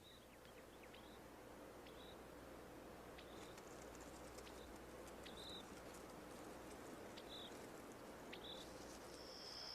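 Near silence: faint outdoor ambience with short, high chirps about once a second and a faint low hum.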